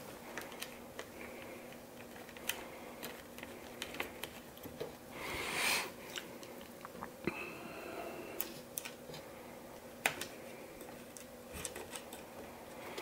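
Scattered faint clicks, taps and rattles of the plastic fittings and metal tube of a cheap iTek 50mm refractor telescope being fitted together on its aluminium tripod. A short scrape comes about five seconds in, and a brief squeak a little after seven seconds.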